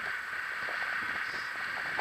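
Longboard wheels rolling on rough asphalt: a steady hiss with many small, irregular ticks from the grainy road surface.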